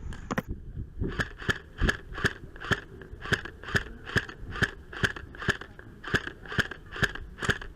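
Footsteps at a brisk, even pace, about two steps a second.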